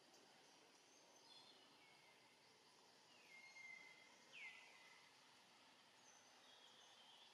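Faint outdoor background hiss with a few thin, high whistled calls, each sliding down and then holding one pitch, the clearest about four and a half seconds in.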